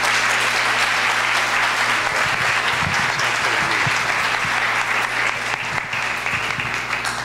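Audience applauding, a roomful of people clapping steadily and densely throughout.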